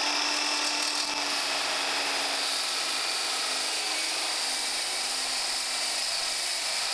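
Ridgid brushless circular saw running at full speed and cutting through a sheet of MDF: a steady whine over the hiss of the blade in the board.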